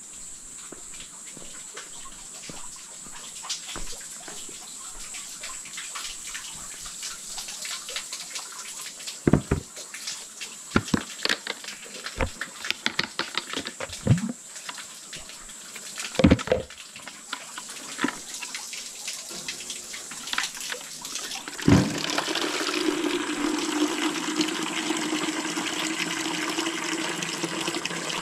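Scattered knocks and clinks of things being handled, then, about 22 seconds in, water starts running steadily into a container.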